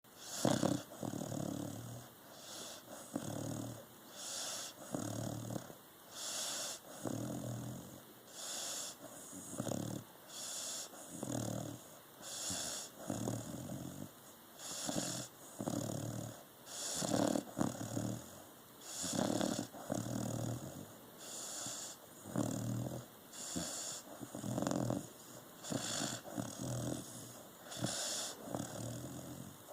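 Snoring: steady, rhythmic breaths with a low rattle and a breathy hiss, coming in pairs about every two seconds.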